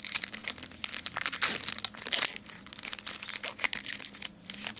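Rapid crinkling and rustling of trading cards and their foil pack wrapper being handled, many quick crackles close together.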